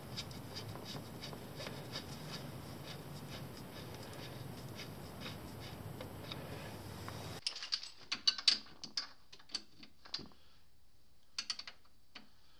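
Faint steady hiss, then from about halfway a scatter of light, sharp clicks and taps at irregular intervals as hands handle parts and wiring around an ATV's front differential.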